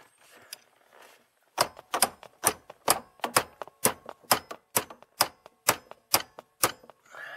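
Hammer blows on the steering shaft of a 1996 Ford Mustang: about a dozen sharp metal strikes, roughly two a second, starting about one and a half seconds in, knocking the shaft to get it to move.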